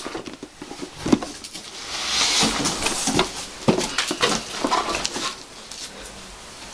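Packaging being handled: irregular crinkling and rustling with a run of light knocks and clicks as items are taken out of a box.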